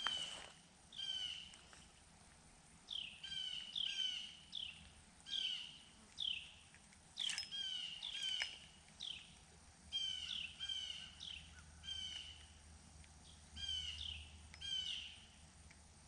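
A bird calling over and over with short, down-slurred chirps, often in quick pairs or runs of three, with brief pauses between the runs.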